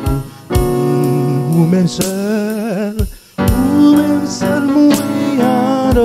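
Electronic keyboard playing a slow gospel worship song in held chords, with a voice singing a wavering line over it.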